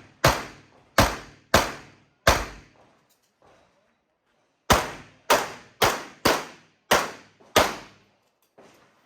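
Pistol shots fired in quick strings during a practical shooting stage: four shots about two-thirds of a second apart, a pause of about two seconds, then six more, roughly two a second.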